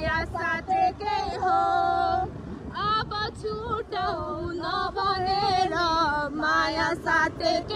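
A woman singing a slow melody in long held notes with a wavering pitch, over a low rumble.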